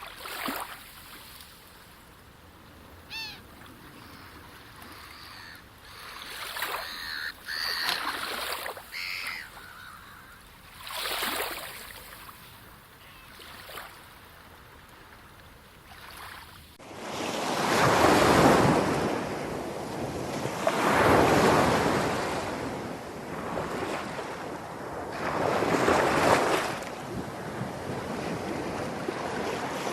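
Sea waves washing in and receding, soft and sparse at first, with a few short high calls. About seventeen seconds in the sound changes suddenly to louder surf, a wave breaking every two to five seconds.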